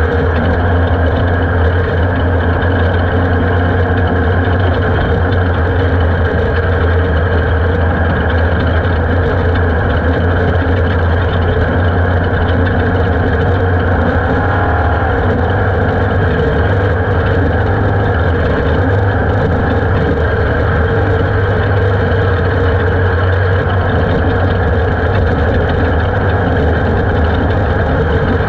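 Onboard sound of an Ultra4 off-road race car driving fast on a dirt track: the engine runs at a steady, constant low drone, with a steady rushing noise over it.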